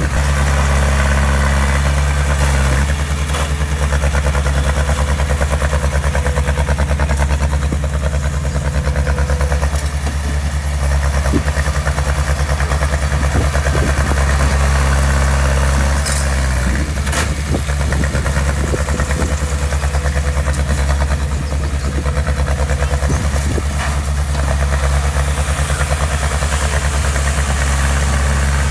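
Diesel engine of heavy construction equipment running steadily at a low, even speed, with a few short sharp knocks along the way.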